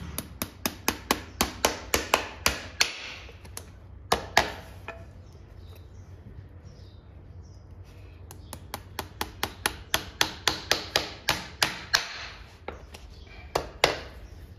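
Farrier's hammer striking in two quick runs of blows, about five a second, each blow ringing briefly, with a few single strikes between and near the end.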